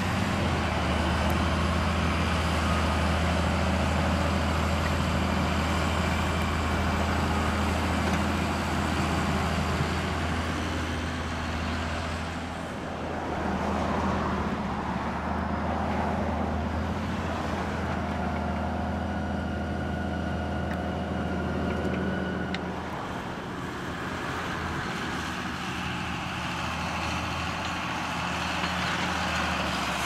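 John Deere 7830 tractor's six-cylinder diesel engine running steadily under load while pulling a reversible plough through the soil. It dips briefly in loudness about twelve seconds in and again just past twenty seconds.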